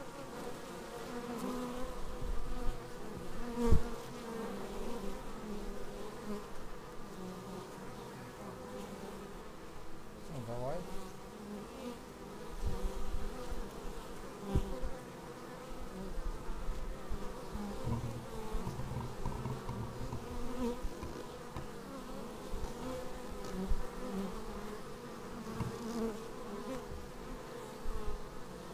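Honeybees buzzing at the hive entrance: many wingbeats overlap in a steady hum, and single bees swoop up and down in pitch as they fly close past. A few short low thumps break through, the loudest about four seconds in.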